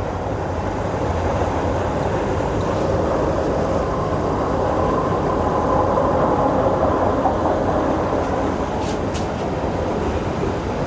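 Steady background noise that swells gradually to a peak about six seconds in, then eases a little.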